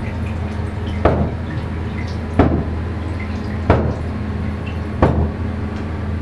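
Water dripping in a tiled bathroom, one drop about every 1.3 seconds, four in all, over a steady low hum.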